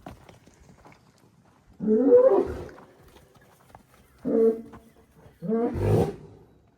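Bull sneezing: three loud, short blasts about a second and a half apart, the first about two seconds in, each with a rough, pitched tone.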